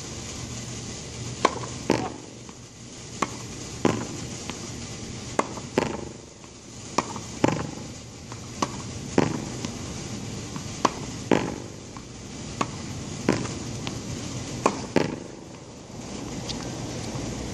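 Tennis wall practice: a ball struck by a racket and rebounding off the wall, giving sharp pops in pairs about half a second apart, a pair roughly every two seconds, eight times over.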